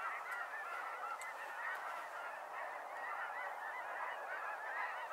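A large flock of snow geese calling in flight: a dense, steady chorus of many overlapping short, high honks.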